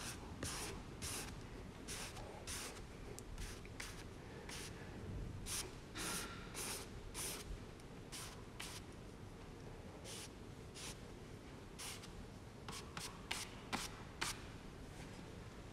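A large paintbrush swept across watercolour paper in short, quick brushing strokes, one or two a second at an uneven pace.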